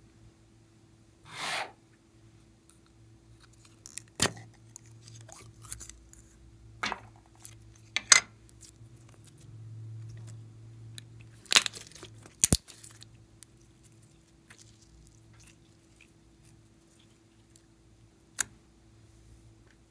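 Slime and soft foam clay handled and mixed by hand in a glass bowl: a short noisy smear about a second and a half in, then scattered sharp sticky pops and clicks.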